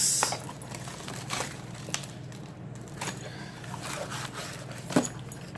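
Packaging being handled: a loud crinkle of paper or plastic at the start, then scattered rustles and small clicks, with a sharper knock near the end, over a steady low hum.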